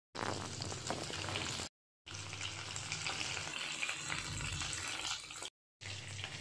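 Chicken pieces deep-frying in a wok of hot oil: a steady sizzle with fine crackling over a low hum. It breaks off into silence twice, briefly.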